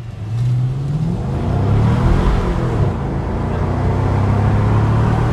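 2015 Chevrolet Camaro engine accelerating hard on a power test after a cylinder 6 injector repair. The revs climb, fall at an upshift about a second in, climb again, fall at a second upshift near three seconds, then hold steady.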